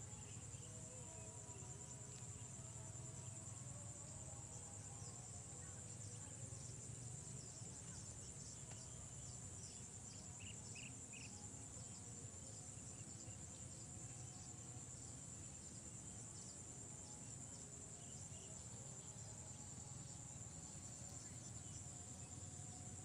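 Faint, steady high-pitched chorus of insects shrilling without a break, with three short chirps about ten seconds in.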